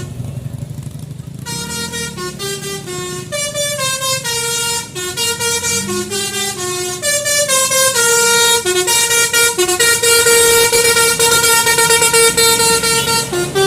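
Basuri 'telolet' multi-tone bus air horn playing a quick melody of stepped notes. It starts about a second and a half in and ends on one long held chord for the last few seconds, with a vehicle engine running underneath.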